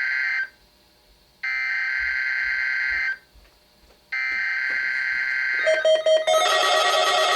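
NOAA Weather Radio SAME alert header: buzzing digital data bursts about 1.7 s long, separated by about a second of silence. The first burst ends just after the start and two more follow. About six seconds in, a different sound of many short stepping tones starts.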